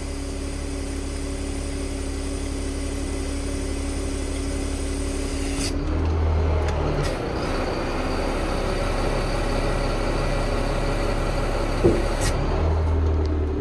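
Caterpillar C7 diesel running with its PTO-driven hydraulic pump as the hydraulic outriggers are worked: a steady hum whose pitch and load shift about six seconds in. There is a single click near the twelve-second mark, and the low rumble swells again near the end.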